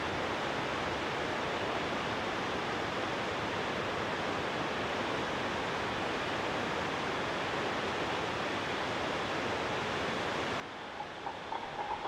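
Steady rush of water, an even hiss-like roar that cuts off abruptly near the end. Soft chime-like music notes begin right after.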